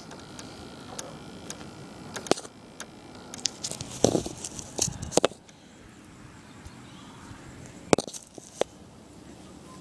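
Tamiya Hilux RC crawler driving over rough ground: a faint steady motor hum with scattered sharp clicks and knocks, a cluster about four to five seconds in and two more near eight seconds.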